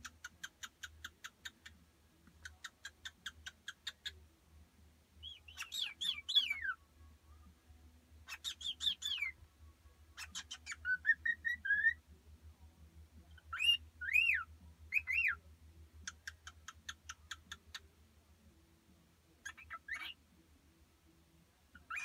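Cockatiel chattering and whistling: several runs of quick repeated chirps, broken by single whistled notes that rise and fall.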